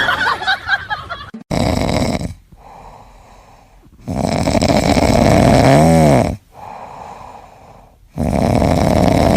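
Loud snoring: three long, rasping breaths about three seconds apart. The middle one ends with a whistling tone that rises and falls.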